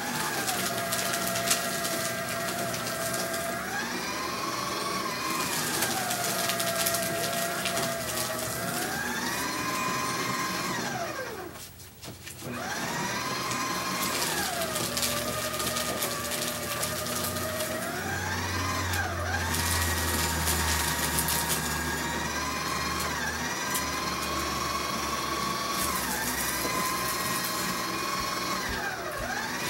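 Electric paper shredder running, its motor whine falling and rising in pitch again and again as sheets are fed in, over the crackle of paper being cut. About twelve seconds in the motor stops for a moment and starts again.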